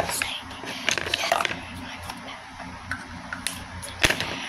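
Makeup items being handled: scattered small clicks and rattles, with one sharp click about four seconds in.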